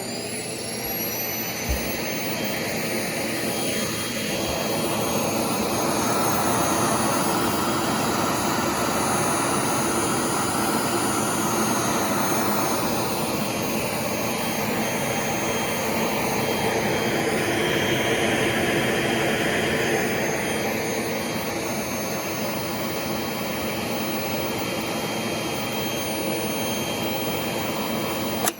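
Vacuum cleaner motor spinning up and then running with a steady high whine, the rush of air swelling and easing in the middle. Near the end a sharp click as a railway emergency-brake switch wired into its power lead cuts the motor.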